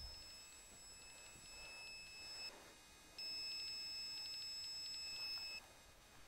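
Electronic carp bite alarm sounding a steady high beep for about two and a half seconds, stopping briefly, then sounding again a little louder for another two and a half seconds with quick ticks in it: line being drawn over the alarm's sensor.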